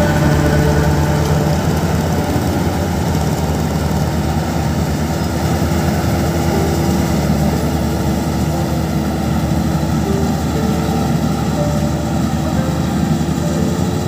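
Maxxi Bimo combine harvester's engine and threshing machinery running steadily while harvesting rice, a continuous loud drone with a dense mechanical rattle.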